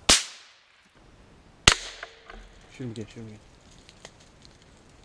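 Two shots from an old Remington .22 rifle, about a second and a half apart, each a sharp crack with a short fading tail.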